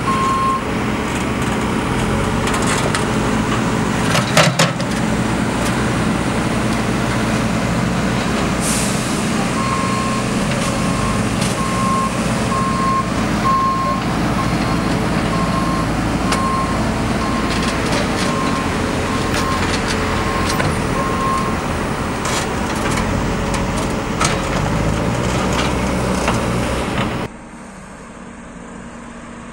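Backhoe loader's diesel engine running steadily, with a couple of sharp clanks about four seconds in and a reversing alarm beeping about once a second through the middle. Near the end the engine noise cuts off to a quieter, steady hum of road traffic.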